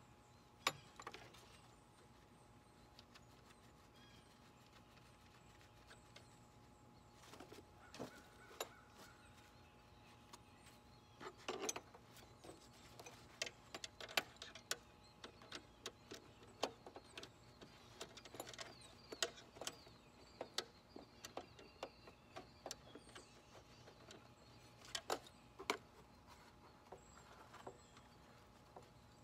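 Faint, scattered metallic clicks and taps of hand tools and parts being worked on a riding lawn tractor, sparse at first and coming more often from about the middle on.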